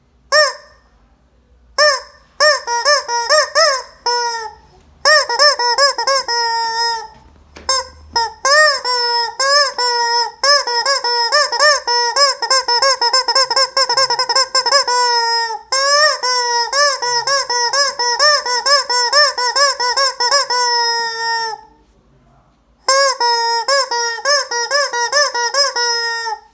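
Rubber squeaky chicken toy squeezed over and over, giving short, high, honking squeaks several times a second in long runs, with a brief break about seven seconds in and a pause near the end.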